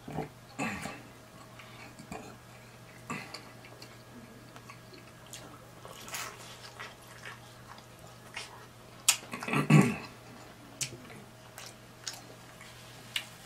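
Close-up eating sounds: wet chewing and lip smacking with scattered sharp clicks, and the loudest cluster of smacks about nine to ten seconds in.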